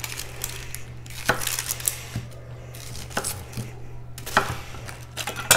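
A 240mm kiritsuke gyuto cutting onion on a cutting board. The blade knocks on the board at an irregular pace, about five sharp strokes with lighter ticks between them, and the loudest stroke comes near the end.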